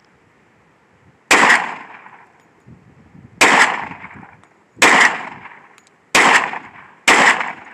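Five gunshots from a firearm, unevenly spaced one to two seconds apart, each with a short echoing tail.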